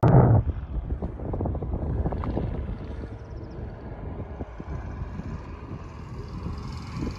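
Low vehicle rumble with wind buffeting and crackling on the microphone, and a short louder burst right at the start.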